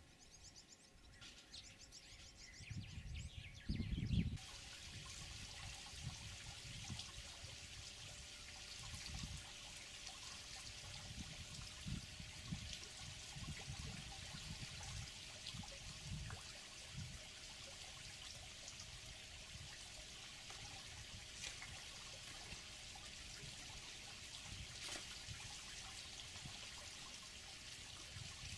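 Faint steady trickling and sloshing of water at a warthog waterhole and mud wallow, with a few low rumbling thumps about three to four seconds in.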